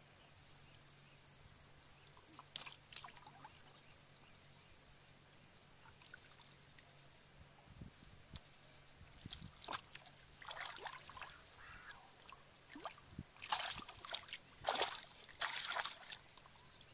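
Hands splashing and sloshing in shallow muddy water in scattered short bursts, with a cluster of louder splashes near the end.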